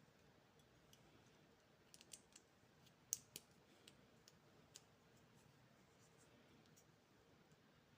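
Faint, sharp clicks and taps of candy packaging being handled, clustered from about two to five seconds in, the loudest about three seconds in, over near silence.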